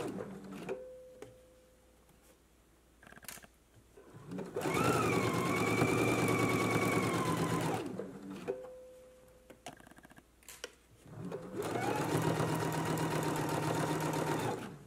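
Electric sewing machine sewing a straight stitch in stop-start runs of about three seconds each; its motor whine rises as it speeds up, then holds steady until it stops. Between runs there are a few light clicks and a short steady tone just after each stop.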